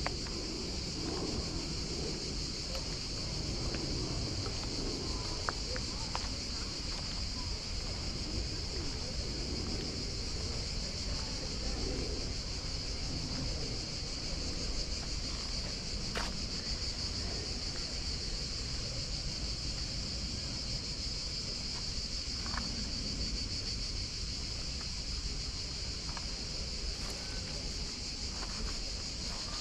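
Steady, high-pitched insect chorus, unbroken throughout, over a constant low rumble of wind on the microphone.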